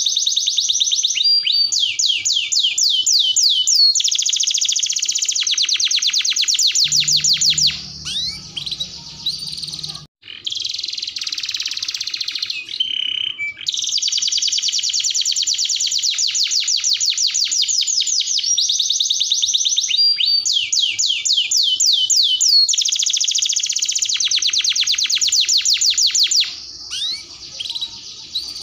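Domestic canary singing a long, loud song of fast rolls and trills, each phrase a rapid run of repeated high notes. The song thins out and briefly stops about eight to ten seconds in, then carries on in long unbroken rolls.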